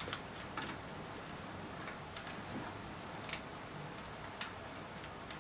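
A handful of faint, irregular clicks from a small screwdriver working the screw terminals of a metal-cased power supply as wires are fitted. The sharpest clicks come about three and four seconds in.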